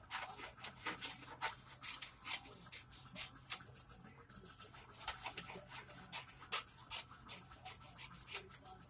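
Scissors cutting sheets of paper into strips: irregular crisp snips, several a second, with paper rustling.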